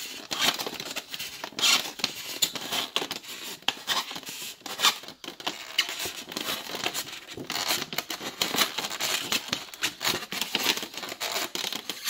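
Utility knife blade cutting through a styrofoam cooler lid: a dense run of short, scratchy strokes as the blade drags through the foam.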